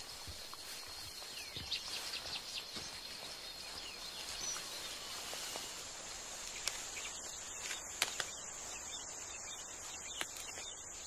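Forest ambience: a steady, high-pitched insect drone that shifts to a higher pitch about halfway through, with faint chirps and a few sharp clicks.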